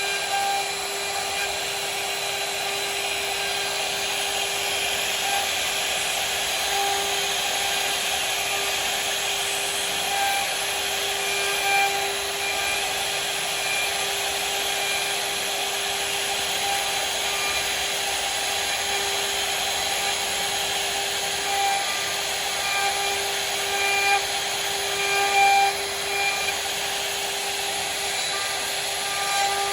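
CNC router spindle running steadily with a constant whine while its bit cuts into wood, the cutting noise rising and falling a little with short extra tones as the tool moves.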